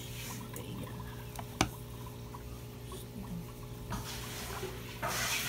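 Aquarium air pump running with a steady hum, with many small pops and trickles of bubbling water in the tank. A sharp click about a second and a half in, and a short rush of hiss near the end.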